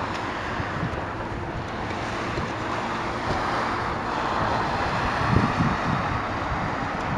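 Steady rushing outdoor ambience noise with a low rumble, swelling briefly about five seconds in.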